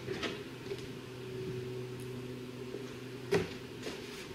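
Steady low hum with a few light clicks and knocks, the sharpest a little past three seconds in: hands handling tools and parts in a car's engine bay.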